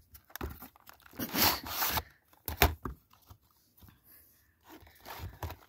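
Packaging of a Pokémon card collection box being handled as its contents are pulled out: irregular rustling and scraping, with one sharp click about two and a half seconds in.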